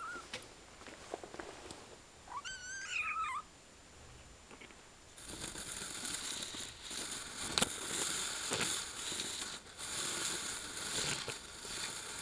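A kitten mews twice: a short mew at the start and a longer, wavering one about two seconds in. From about five seconds a close, crackly rustling noise with a few sharp clicks takes over and runs on.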